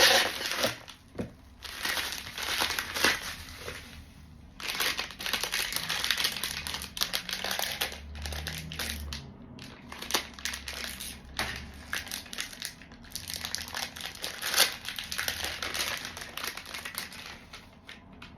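Plastic packaging rustling and crinkling as a hard drive is unwrapped by hand, going on and off with short pauses.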